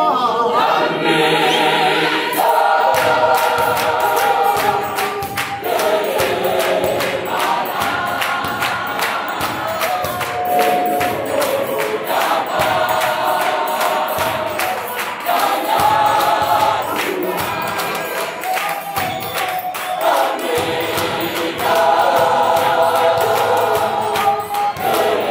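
Mixed gospel choir singing in harmony behind a male lead singer, with steady hand-clapping keeping the beat.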